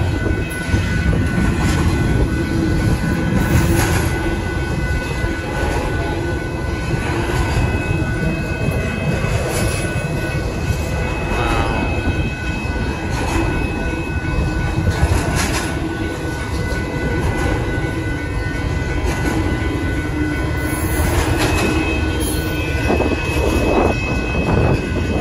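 Double-stack intermodal freight train rolling past at a grade crossing: a continuous rumble of steel wheels on rail and well cars, with scattered clicks and faint steady high-pitched tones above it.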